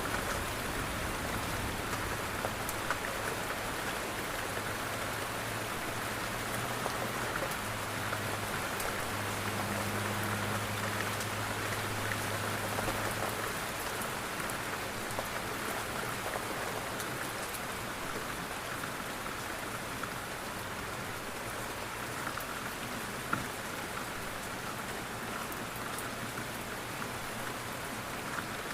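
Steady rain falling on window glass. A low hum sits underneath and fades out about halfway through, and there is one sharp tap near the end.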